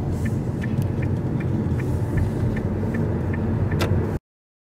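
Car's turn-signal indicator ticking steadily, about two to three ticks a second, over the low rumble of the engine and tyres heard inside the cabin. The left signal is on for leaving a roundabout. A sharper click comes near the end, then all sound cuts off abruptly.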